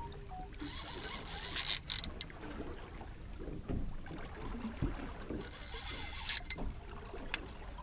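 Multiplier reel on a heavy boat rod being wound as a conger is pumped up from the bottom, the reel whirring in two spells, about a second in and again around five seconds in, with a few clicks.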